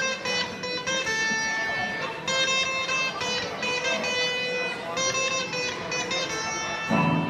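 A guitar picking a run of separate notes, each ringing out for about half a second before the next, as in a band's sound check.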